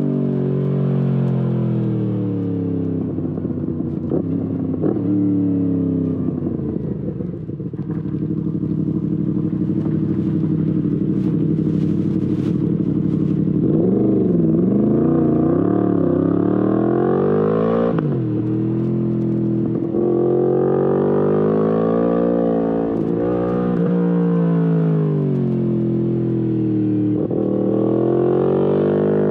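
Yamaha MT-10 SP's crossplane inline-four engine, through an Akrapovic exhaust, heard from the bike while it is ridden. The revs repeatedly climb, drop and climb again as the rider accelerates, shifts and rolls off for bends, with a steadier stretch in the middle.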